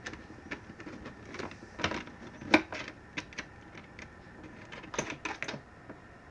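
Irregular light clicks and taps of a nut and a tapered 3D-printed washer being fitted by hand onto the end of an M8 threaded rod through the wall of a clear plastic storage box, the sharpest click about two and a half seconds in.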